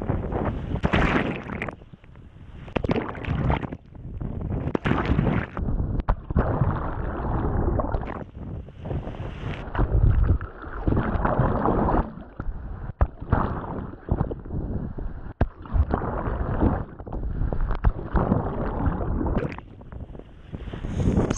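Seawater rushing and splashing over a camera held at the surface beside a moving sailboat as it dips under and comes back out, with wind buffeting the microphone. The rush surges and drops off irregularly every second or two.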